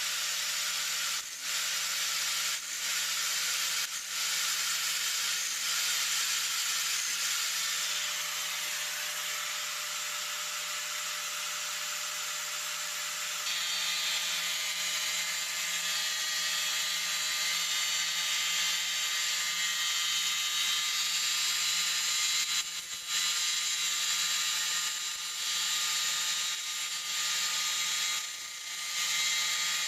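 Electric sawmill band-blade sharpener grinding the saw teeth: a steady high grinding hiss with a few brief dips, in the first seconds and again near the end.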